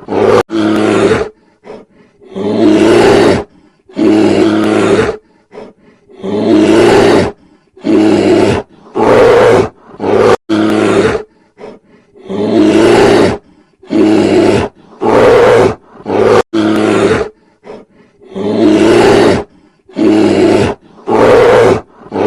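A large animal roaring over and over: a dozen or so loud, deep calls, each lasting about a second, with short gaps between them.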